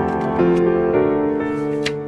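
Background music led by piano, with notes changing every half second or so.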